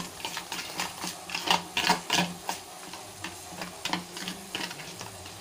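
A steel spoon stirring a thick, wet spice paste in a stainless steel bowl: quick, irregular scrapes and clicks of metal on metal, several a second.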